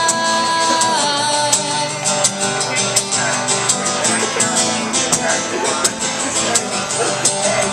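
Live band playing an instrumental break: acoustic guitar strumming over a steady beat of sharp percussion hits, with a long held note ending about a second in.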